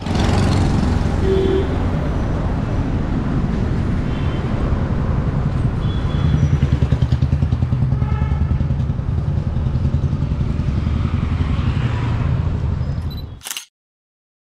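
Road traffic: motorbikes and cars running along a city street, steady and loud, with a few faint short high tones. It cuts off abruptly near the end.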